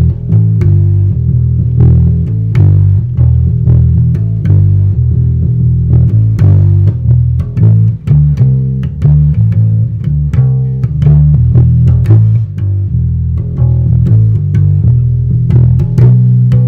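Squier Precision Bass electric bass played through an amp: a plucked bass line of many quick notes, low and thuddy with little bright ring. Its strings, at least 12 years old, sound dead.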